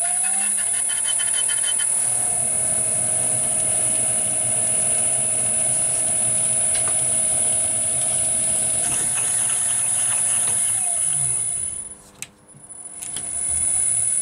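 Small lathe's electric motor spinning up and running steadily while a die in a tailstock die holder is run onto an EN16T steel stud to cut a 3/8 UNF thread. The motor runs down and stops about twelve seconds in, then spins up again near the end.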